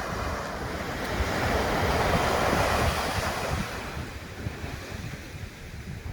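Sea waves breaking: a wash of surf swells to its loudest about two to three seconds in and then falls away. Wind rumbles on the microphone underneath.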